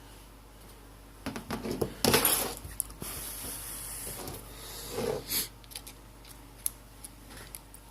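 Handling noises from small-parts repair work: scattered clicks and rustles, a sharp clatter about two seconds in, a stretch of hiss and another knock about five seconds in.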